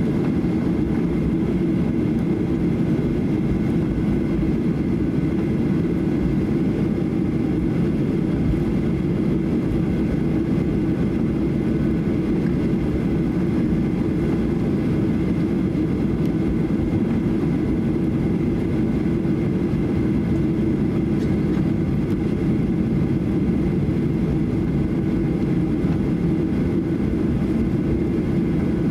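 Steady cabin noise of a Boeing 737-800 taxiing, from its CFM56-7B engines at taxi power: a low rumble with faint steady whining tones above it.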